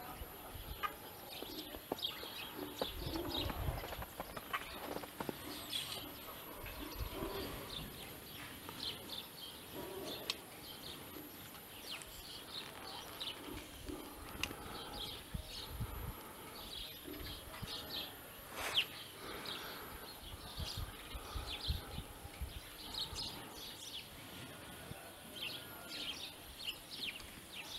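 Small birds chirping on and off, many short high calls, with occasional low rumbles underneath.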